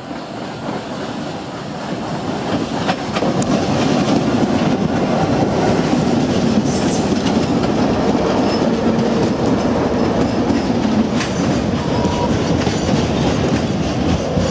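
Diesel-electric locomotives of a grain train passing close by, growing louder over the first few seconds and then holding steady with engine noise. Near the end the grain hopper wagons roll past over the rails, with occasional sharp clicks.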